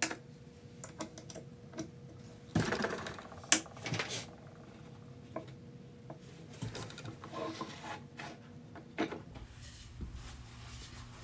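Small cue lathe at work while a cutoff tool scrapes narrow grooves into a maple handle: scattered clicks and short scraping bursts over a faint steady tone that stops a little past halfway.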